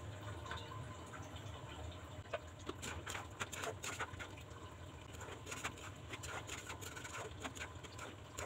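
Curry of mutton, figs and potatoes bubbling softly in a non-stick wok, then a steel spatula stirring it, with small scattered clicks and scrapes from about two seconds in, over a faint steady low hum.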